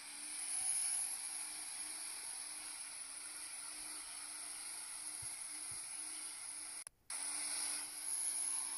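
A 12-valve Cummins compound-turbo diesel in a 1994 Dodge Ram 2500 running hard through a burnout: a steady engine drone under a strong turbo hiss. The sound cuts out for a moment about seven seconds in.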